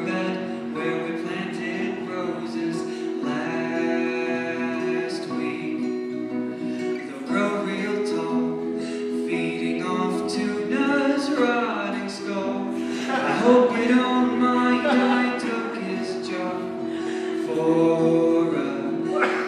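A live band playing a song: singing voices over steadily held chords.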